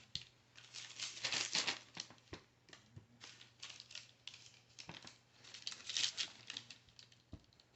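Parchment paper crinkling and rustling in irregular bursts under hands pressing and shaping soft dough on a lined baking sheet.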